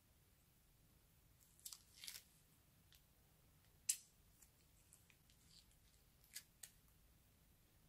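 Faint crinkles and sharp clicks of plastic piping bags being handled: a short cluster about two seconds in, one sharp click near four seconds, and two more near six and a half seconds.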